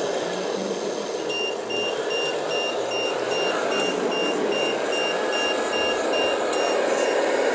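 Scale RC dump truck reversing, its reverse-warning alarm beeping about three times a second from about a second in until near the end, over a steady mechanical hum.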